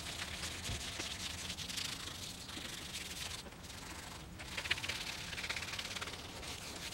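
Sandpaper of 1000 grit rubbed by hand over G2 feather-fill primer on the cab of a 1953 Ford F100 truck. It makes a steady, scratchy back-and-forth hiss, with two short breaks in the strokes near the middle.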